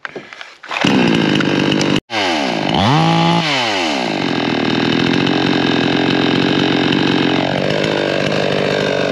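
Two-stroke gas chainsaw catching about a second in and running. Its engine is already warm from an earlier start. It is revved up once and drops back to a steady idle.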